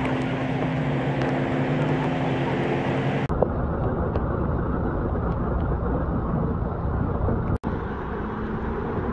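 Vehicle engines idling in a rain-flooded street over the hiss of rain and water. Then a steady rush of rainwater pouring off the edge of a building. Near the end, cars driving through the floodwater.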